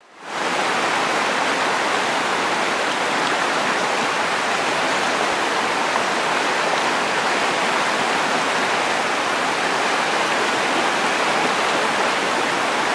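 Whitewater river rapids rushing: a steady, even wash of churning water that fades in over the first half-second and then holds constant.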